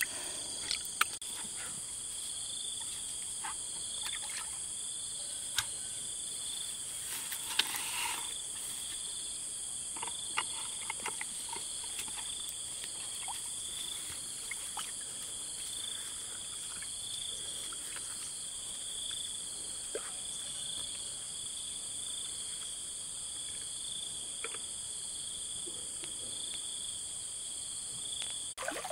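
Steady high-pitched insect chorus, one of the calls pulsing about once a second, with scattered small clicks and a brief splash of water about eight seconds in.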